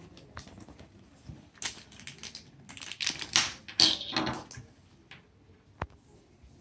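Box contents being handled and set down on a wooden table: a scatter of small clicks, taps and rustles, with one sharp click near the end.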